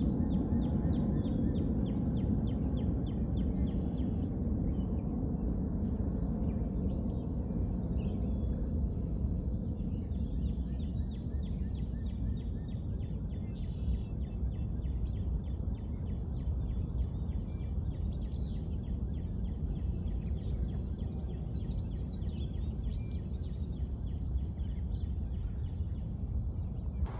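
Open-field outdoor ambience: a steady low noise, with scattered faint bird chirps and quick ticking calls above it.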